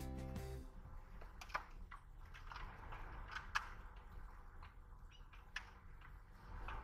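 Background music that cuts off within the first second, followed by scattered faint clicks and knocks over a low background hiss.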